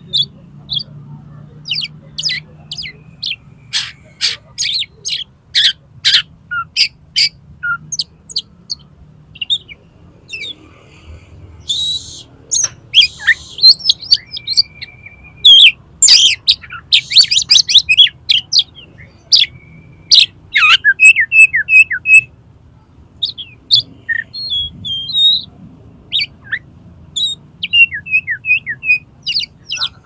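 Oriental magpie-robin singing loudly and without pause: a rapid, varied stream of sharp high chips, whistles and trills, packed with mimicked fill-in phrases ('isian'). A short buzzy phrase comes about twelve seconds in, and runs of quick repeated notes come later on.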